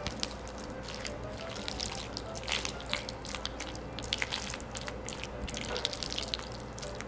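A spatula stirring chopped boiled eggs, diced onion and mayonnaise in a glass bowl, making wet, irregular sticky clicks and smacks.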